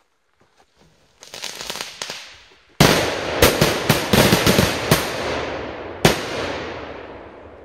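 Funke Titanblitz 3 firecracker going off: a hissing spray starts about a second in, then a sudden loud bang, a string of sharp cracks over the next two seconds and one more sharp bang about six seconds in, over a hiss that fades away.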